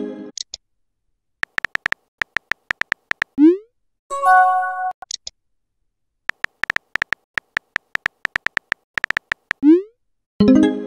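Texting-app sound effects: runs of rapid keyboard taps as messages are typed, a short rising swoosh as each message is sent, and a brief bright chime of a few notes about four seconds in and again near the end.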